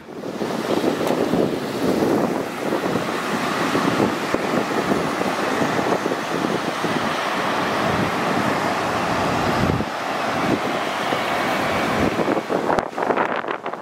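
Steady rushing noise of a public-transport vehicle, such as a tram, train or bus, with wind buffeting the microphone. It turns choppier near the end.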